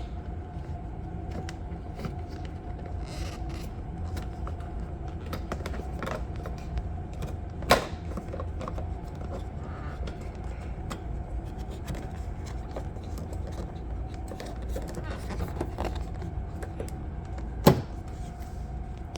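Small clicks and rattles of plastic and metal door-trim parts being handled and fitted around the interior door handle, with two sharper clicks, one about eight seconds in and one near the end, over a steady low hum.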